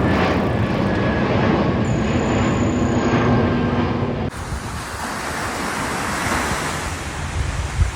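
Surf washing on a beach, mixed with wind buffeting the microphone. About four seconds in an abrupt cut changes the sound from a lower rumble with a faint steady hum to a brighter, hissing wash.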